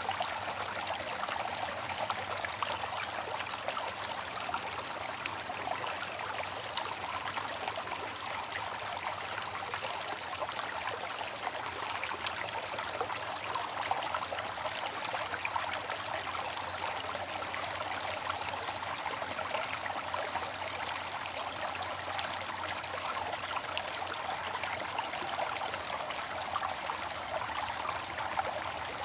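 Water fountain splashing and trickling steadily, an even rush of falling water with fine splashes.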